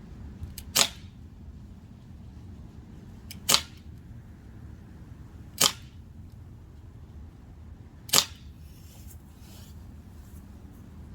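Four shots from a BB air pistol, each a short sharp snap, spaced about two to three seconds apart.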